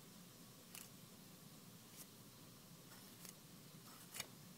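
Faint clicks of a fillet knife's tip skipping over a flatfish's bones as the blade is traced along them, four times about a second apart, over near-silence.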